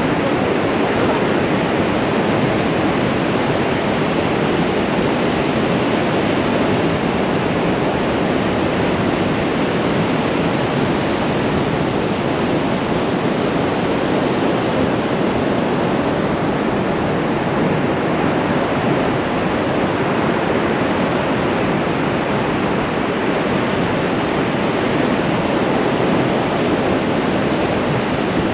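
Sea surf breaking along a shallow sandy beach, heard as a steady, even wash of noise with no single waves standing out.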